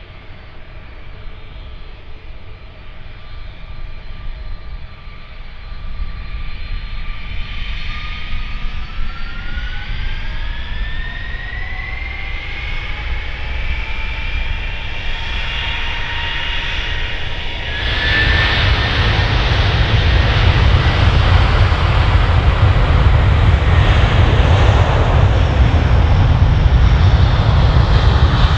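Airbus A330-300's Rolls-Royce Trent 700 turbofans spooling up for takeoff: a steady whine that rises in pitch from about eight seconds in, then at about eighteen seconds a sudden jump to a loud, deep rumble as takeoff thrust is set and the jet rolls down the runway.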